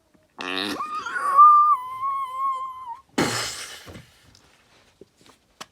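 A long, high-pitched wavering wail in a voice, starting with a short low buzzy sound. It is followed by a brief burst of hissing noise.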